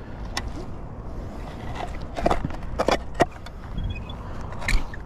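A handful of sharp metallic clicks and knocks as scrap metal is handled and pulled off a neodymium fishing magnet, several coming together around two to three seconds in and one more near the end, over a steady low rumble.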